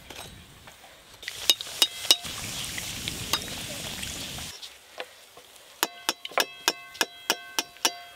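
Hing kachuri deep-frying in hot oil in an aluminium wok, a steady sizzle with a few clinks of a metal slotted spoon. About six seconds in the sizzle drops away and a quick run of ringing metal taps follows, about four a second, as the slotted spoon is rapped on the wok.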